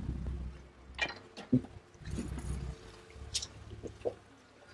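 Wind buffeting the microphone as a low, uneven rumble that swells and fades, with a few light knocks and clicks on a boat's deck.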